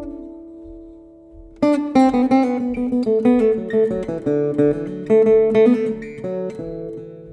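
Background music of plucked guitar: a held chord dies away, then after a short lull the picking starts up again with a run of notes that fades near the end.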